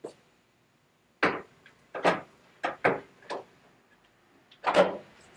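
Hard knocks of a high-gloss MDF table leaf being set down and shifted on an expandable dining table's aluminium extension frame: about six separate knocks, the loudest near the end.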